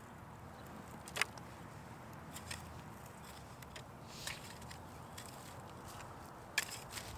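Hand-digging Chinese artichoke tubers from dry soil and straw mulch: scattered soft scrapes and small clicks of a hand tool and gloved hands working the earth, with a sharper click about a second in and another near the end.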